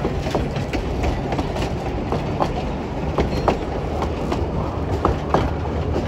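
Two-foot narrow-gauge passenger cars rolling slowly past, with wheels clicking and knocking over the rail joints over a steady low rumble.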